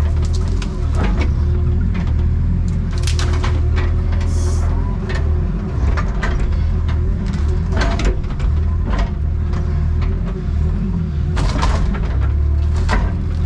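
Excavator's diesel engine running steadily under load, with repeated sharp cracks and knocks as trees and brush are pushed over and broken.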